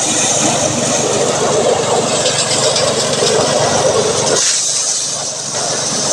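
An engine running steadily, dipping briefly about four and a half seconds in.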